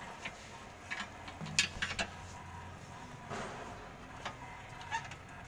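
Scattered light clicks and knocks over a faint low hum, with a brief rustle about three seconds in, as tools and equipment are handled.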